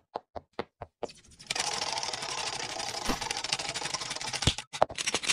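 Cartoon sound effects for an animated intro: a few light, quick tapping footsteps in the first second, then a long, rapid rattling clatter, broken by a couple of sharp knocks near the end.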